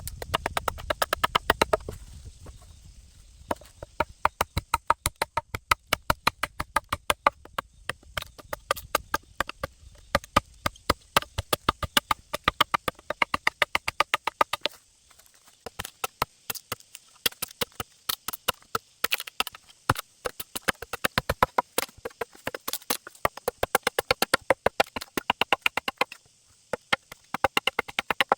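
Rapid runs of sharp knocks from a tool striking bamboo, several a second, broken by a few short pauses.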